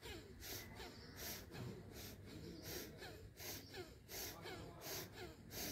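A woman's rapid, forceful breathing during a yoga breathing exercise, breathing in as the arms go up and out as they come down with a jerk. Each breath is a short sharp hiss, in a steady rhythm of about one and a half breaths a second.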